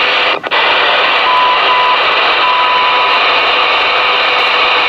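Loud, steady static hiss from the Ranger RCI-2970N4's receiver tuned to an open channel, with a short dropout about half a second in. A few brief steady whistles, two short and one longer, sound in the middle of the hiss.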